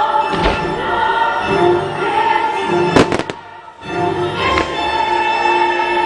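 Fireworks show soundtrack of choir and orchestra playing throughout. Firework shells bang about half a second in, loudest at three seconds in (the sound dips briefly after it), and again about four and a half seconds in.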